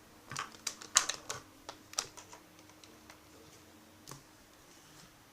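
Small sharp clicks and taps from handling a tablet and headphone plug, a quick cluster in the first two seconds, then a few scattered ones.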